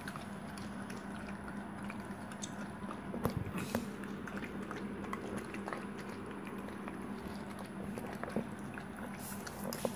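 Yellow Labrador puppy eating soft, wet food from a stainless steel bowl: continuous wet lapping and chewing with scattered small clicks.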